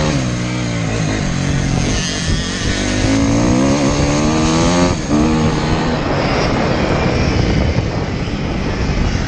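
KTM dirt bike engine under way, the revs rising and falling again and again as the throttle is worked, heard from the rider's helmet. After about five seconds the engine pitch blurs into a rougher rushing noise.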